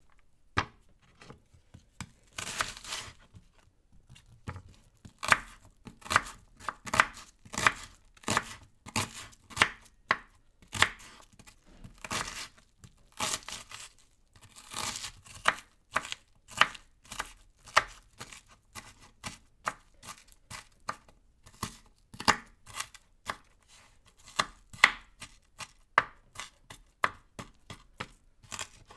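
Knife chopping vegetables in a run of sharp strokes, roughly two a second and unevenly spaced, with a few longer, noisier cuts mixed in.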